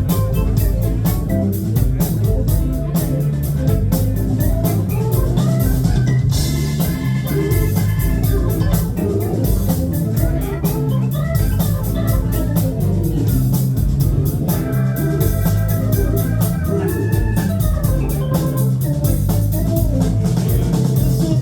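Live funk band playing an instrumental passage: keyboards with an organ sound over a drum kit and electric bass.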